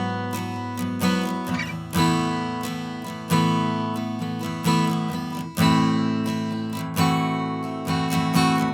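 Gibson J-45 Standard acoustic guitar being strummed: full chords struck about once every second or so, each left to ring out and fade before the next.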